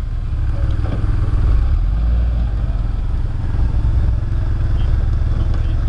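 Engine of a modified four-wheel-drive pickup running at low speed under load as it crawls its front tyre up onto a boulder, a steady pulsing rumble.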